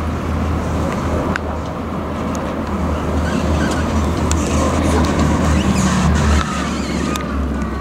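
A steady low rumble that eases a little about six and a half seconds in, with a few faint clicks over it.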